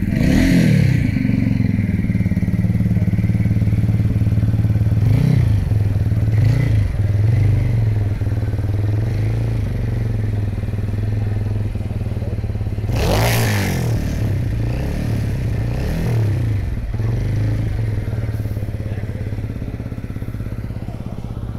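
TVS Ronin's 225cc single-cylinder engine idling with a deep exhaust thump, its throttle blipped several times. The biggest rev rises and falls a little past halfway through.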